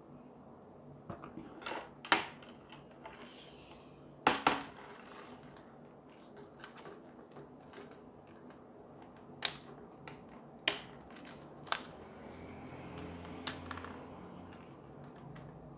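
Small metal mounting clip of an LED T5 batten lamp being handled and clipped onto the lamp's plastic housing: a series of sharp clicks and clacks, the loudest about two and four seconds in. A faint low hum comes up near the end.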